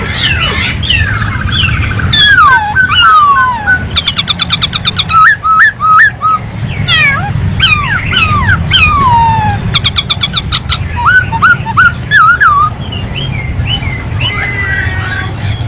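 Masked laughingthrush (poksay hongkong) singing hard: a varied run of loud whistled notes, with falling slurs and short upswept notes. Twice it breaks into a fast, rattling trill. A steady low hum runs underneath.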